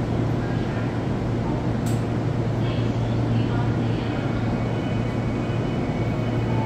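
Steady low hum of a Toyo Rapid Railway 2000 series electric commuter train, with a single sharp click about two seconds in.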